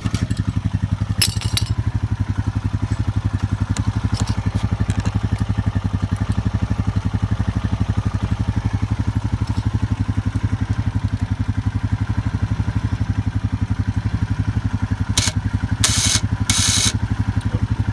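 Honda Rancher 420 ATV's single-cylinder four-stroke engine idling steadily, with a few brief clicks and scraping rattles about a second in and again near the end.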